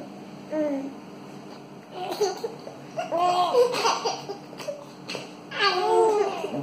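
Seven-month-old twin babies laughing at each other in several short bursts of giggles.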